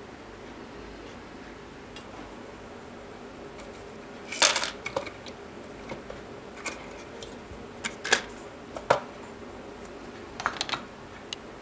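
Small die-cast metal and hard plastic toy truck parts clicking and clattering as they are handled and set down on a tabletop. The loudest clatter comes about four and a half seconds in, followed by scattered single clicks and a short run of clicks near the end.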